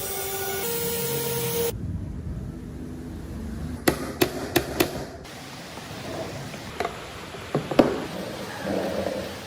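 Woodworking sounds cut together: a short burst of a whining power tool at the start, then four sharp knocks in quick succession near the middle and a few more single knocks later, like tools striking wood.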